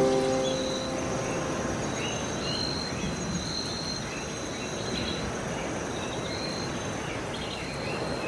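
Background music ending within the first second, then the steady hiss of a large factory hall with a faint high whine and scattered faint high chirps.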